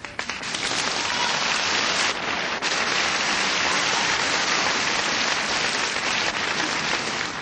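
A large audience applauding. The applause breaks out suddenly, holds steady and dies away near the end.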